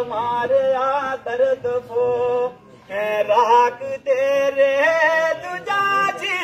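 A man singing a kalaam, a devotional poem, unaccompanied through a megaphone, in long, wavering held notes. There is a short pause for breath about two and a half seconds in.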